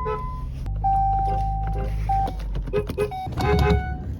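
Car horns sounding: one steady blast of a little over a second, then several short toots, over a low engine rumble.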